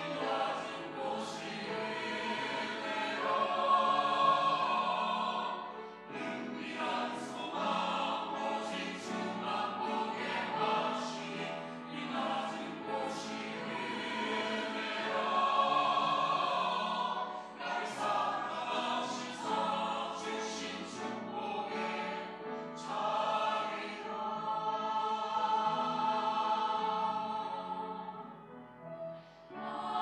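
Mixed-voice church choir singing an anthem in Korean, sustained chords with clear sung consonants. The sound drops briefly near the end before the voices come back in.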